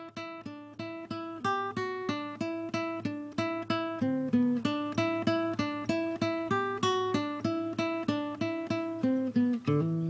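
Acoustic guitar fingerpicked, single notes in a steady, repeating arpeggio pattern of about three notes a second, each note ringing and fading before the next.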